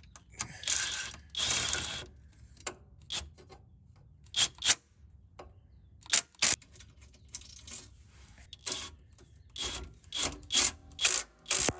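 Hand work on the compressor's mounting brackets: two rasping strokes about half a second to two seconds in, then a string of sharp clicks and knocks, some in quick pairs.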